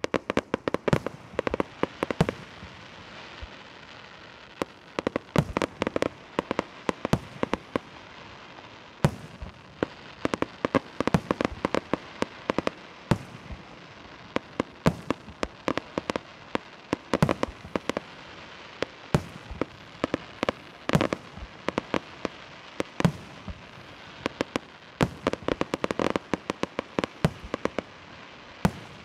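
Fireworks display: a rapid, irregular string of sharp bangs from bursting aerial shells, several a second, with crackle between them.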